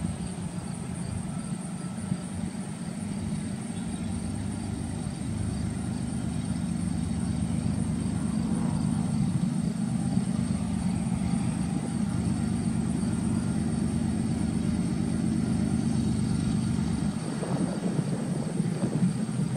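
Diesel freight locomotives rumbling in the distance as a train approaches, the steady low rumble slowly growing louder.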